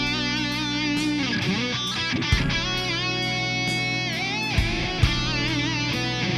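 Tokai Love Rock LS-136F electric guitar with Alnico 5 PAF-style humbuckers playing a lead line: held notes with wide vibrato and string bends.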